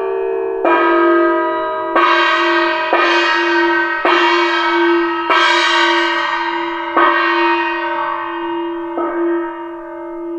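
Background music of struck bell- or gong-like tones, a new strike every one to two seconds ringing out slowly over a held low note.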